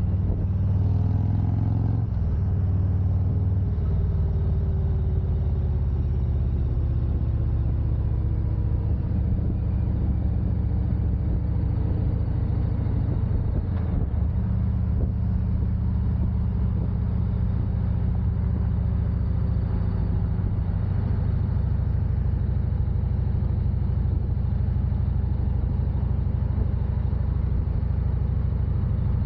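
Motorcycle engine running at road speed under a steady low wind rumble on the microphone, the engine pitch shifting briefly near the start and again about halfway through.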